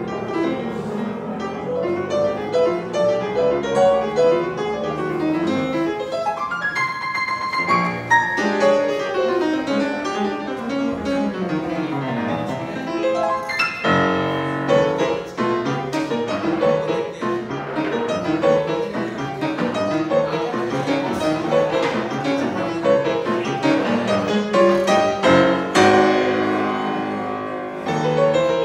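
Grand piano played solo in a warm-up: a steady stream of fast runs and full chords, with a bright high passage about seven seconds in and heavy chords struck about fourteen and twenty-six seconds in.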